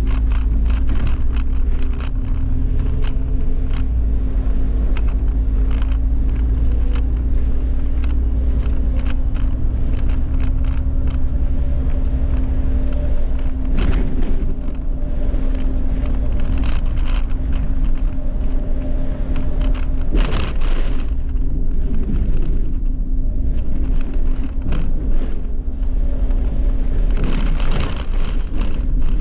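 Irisbus Cityclass city bus with a CNG (natural-gas) engine driving along, heard from the driver's seat: a steady engine hum and road rumble, with frequent rattles and clicks from the bus's interior fittings.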